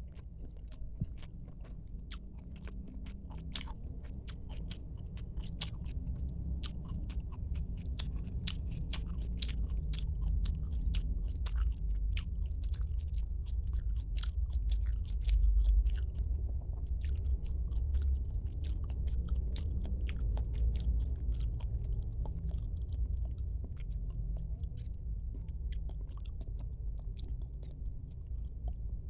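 A person chewing and biting squid, with many small wet mouth clicks throughout, loudest about halfway through.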